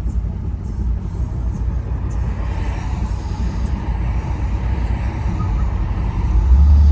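1957 Ford Thunderbird's V8 with mellow mufflers running as a steady low rumble, heard from inside the car. Near the end the engine note gets clearly louder as it takes throttle.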